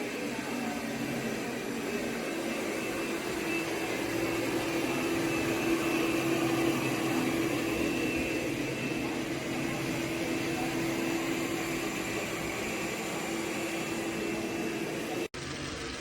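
AIRROBO T20+ robot vacuum running: a steady whir of its suction motor with a steady hum underneath. It cuts out for an instant about 15 seconds in.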